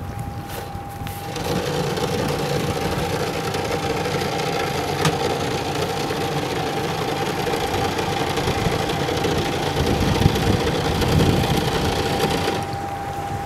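Motor cruiser's inboard engine running steadily at low speed as the boat passes close by, with a steady high whine underneath. The engine noise drops away abruptly near the end.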